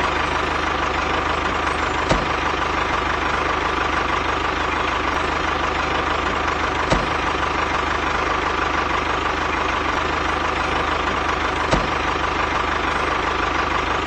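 Mini tractor engine running steadily at an even idle, with a constant whine over a low hum and a faint click about every five seconds.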